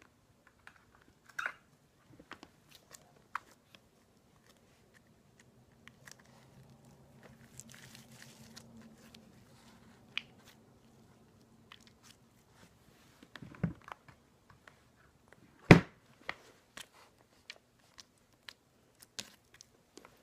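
Slime being stretched and poked by hand, giving scattered small sticky clicks and crackles, with two louder knocks about 13 and 15 seconds in.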